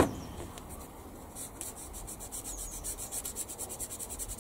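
Sprue cutters snapping a plastic kit part off its sprue with one sharp snap at the start. From about a second and a half in, rapid, even strokes of hand sanding on the plastic part's cut edge, removing the sprue nub.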